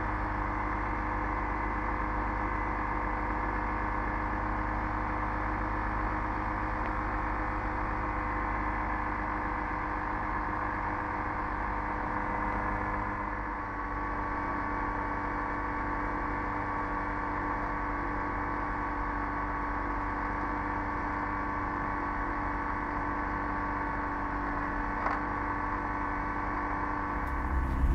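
Rotax 503 two-cylinder two-stroke engine of a Quad City Challenger II ultralight running steadily at low power as the plane sits and then taxis slowly on grass. It dips briefly about halfway through and comes back a touch higher in pitch.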